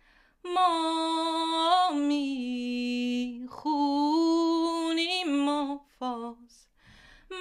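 A woman singing unaccompanied in slow, long-held notes that step down in pitch: two phrases, then a short note near the end.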